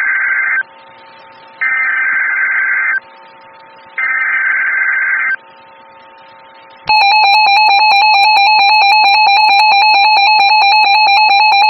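NOAA Weather Radio emergency alert tones: the end of one burst of buzzy digital SAME header data and two more bursts about a second apart, then about seven seconds in a loud steady warning alarm tone starts and holds, announcing a tornado emergency bulletin.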